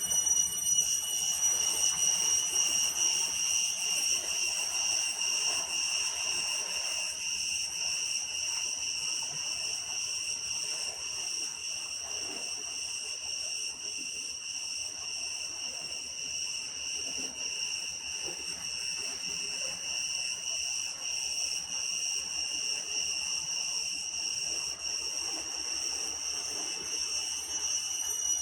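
Insects trilling steadily in a continuous high-pitched chorus.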